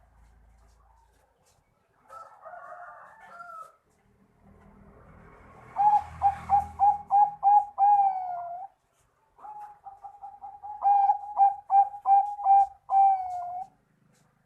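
Zebra dove (Bangkok-line perkutut) singing its cooing song: two phrases of quick, repeated clipped coos, each ending in a longer drawn-out note. A shorter, rougher call comes about two seconds in.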